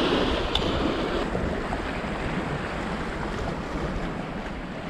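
Sea surf washing and breaking over shoreline rocks, with wind buffeting the microphone; a steady rushing that eases slightly after the first second.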